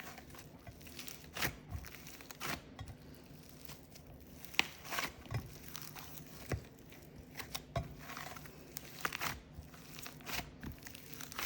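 Several slimes being kneaded, folded and pulled apart by hand to mix them: irregular, fairly quiet clicks, pops and crackles as the slime stretches and tears.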